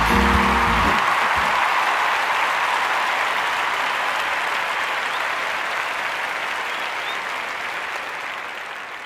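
A crowd applauding, with music cutting off about a second in; the applause then slowly fades away.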